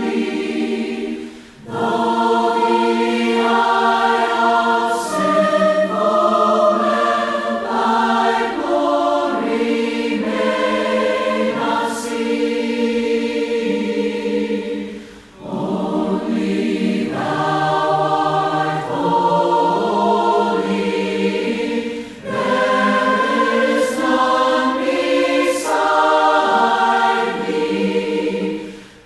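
A group of voices singing a hymn in parts, a cappella, in long phrases with brief breaks for breath about a second and a half in and about halfway through.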